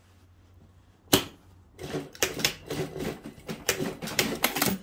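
Industrial single-needle sewing machine stitching in short, uneven runs of rapid clicking, sewing back and forth to lock the end of a seam. A single sharp click comes about a second in, before the stitching starts.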